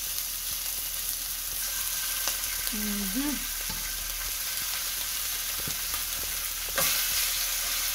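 Seasoned chicken pieces sizzling in hot oil in a pot, a steady frying hiss. A few knocks come as more pieces go into the pot, the loudest near the end, after which the sizzle is louder.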